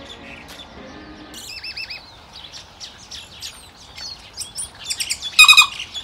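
Songbird singing in the trees: a varied run of warbling whistles, clicks and sharp notes. The loudest, a strong ringing note, comes about five and a half seconds in.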